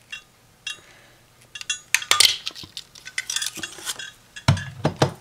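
Stampin' Up! Word Window punch pressed through cardstock and handled: a string of sharp clicks and clatter, with a dull thump near the end.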